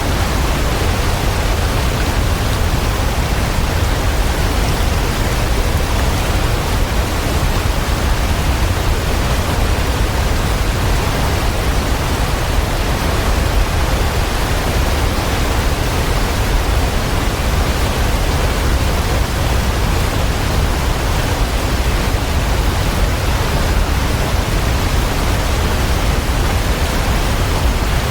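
Waterfall: a loud, steady, unbroken rush of falling water with a heavy low rumble.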